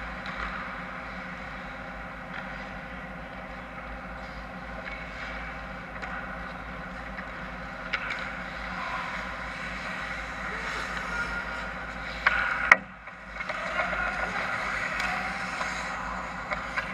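Ice hockey play in a rink: skates scraping the ice over a steady hum, a sharp crack about eight seconds in, and two loud bangs of puck or stick striking about twelve seconds in.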